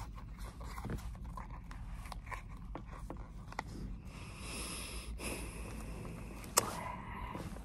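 Crayons clicking and rustling in their box as fingers dig through it and pull them out: scattered small clicks, a short rustle about four seconds in, and one sharper click near the end.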